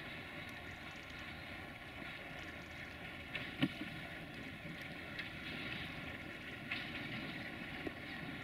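Distant 060-DA (LDE2100) diesel-electric locomotive with a Sulzer engine running as it approaches slowly, a faint steady drone with a steady high whistle, the sound that gives this loco its nickname 'Fluieroasa' (the whistler). A few short sharp clicks cut in, the loudest about three and a half seconds in.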